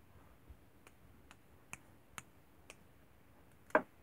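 Scattered light clicks of plastic doll toys being handled, with a louder knock near the end.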